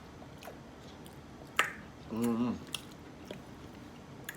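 Eating sounds from a seafood boil: scattered sharp clicks and snaps of crab shells being handled and cracked, the loudest about a second and a half in. There is a short hum of a voice just past two seconds.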